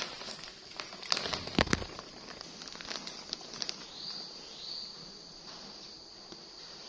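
Plastic diaper packaging being handled, rustling and crinkling, with a few sharp crackles in the first two seconds. Faint short high chirps come and go later on.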